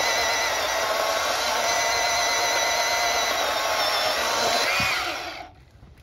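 Milwaukee battery-powered chainsaw cutting through a fallen tree trunk, its electric motor a steady whine. It stops about five seconds in.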